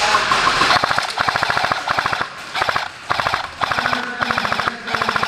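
A&K M249 Mk46 airsoft electric support gun firing several bursts of full-auto, a fast even rattle of shots with short pauses between the bursts.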